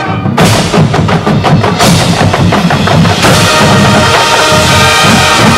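Marching band playing. A held brass chord breaks off a moment in, and the drums take over with a rapid run of loud strikes. About three seconds in, full sustained brass chords come back in over the drums.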